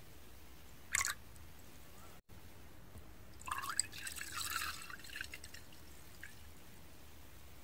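Makgeolli poured in a stream into a ceramic cup, with a short splash about a second in and about two seconds of louder pouring and splashing in the middle.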